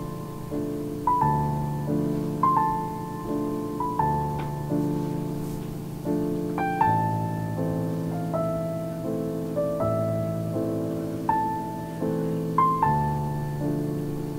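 Piano music: a slow melody of single struck notes, each dying away, over held lower chords.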